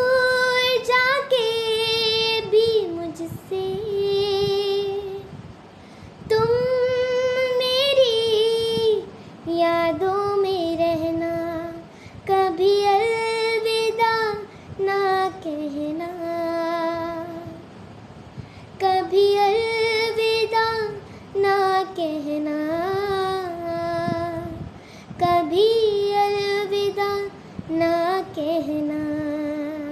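A young girl singing a slow Hindi film song unaccompanied, in phrases of long held notes that bend and waver, with short breaks for breath between them.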